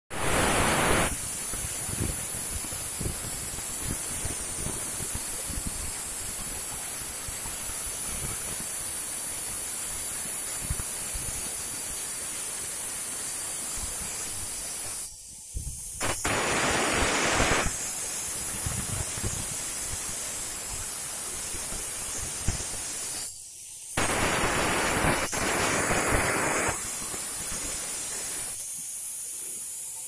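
Steady rushing noise of wind on the microphone, with louder gusts in the first second, about halfway through and again past the two-thirds mark.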